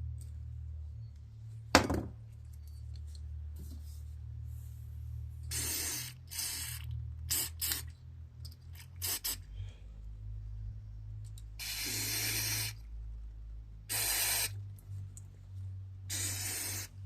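Aerosol carburetor cleaner sprayed in a series of short hissing bursts, about eight of them, into the small passages of a Kohler mower engine's carburetor, over a steady low hum. A single sharp knock about two seconds in.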